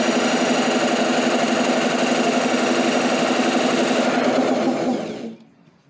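Hand-held electric drill chucked onto the pulley of a U43102 piston air compressor, spinning the compressor's crankshaft over. It runs steadily, then slows and stops about five seconds in. This is a test spin to check that the piston clears the plate.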